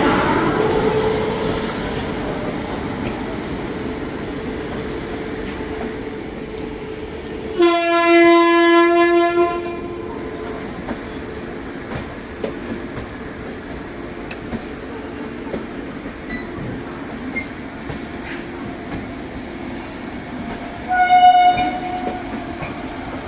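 Vande Bharat Express train pulling out, with a steady rumble of the train running that eases after the first few seconds. A train horn sounds one long blast of about two seconds about a third of the way in, and a shorter, higher-pitched horn blast comes near the end.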